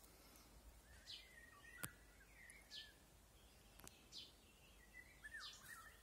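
Faint songbirds singing: short high notes that sweep down, about four in all, and a lower warbling phrase about a second in and again near the end. Two faint clicks, about two and four seconds in.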